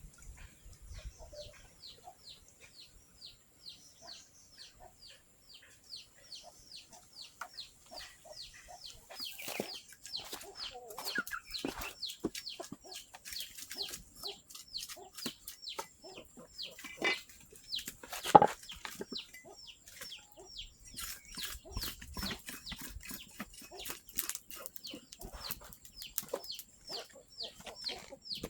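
Chickens, mostly chicks peeping in a long run of short, high, falling chirps, several a second. A single sharp knock about eighteen seconds in is the loudest sound.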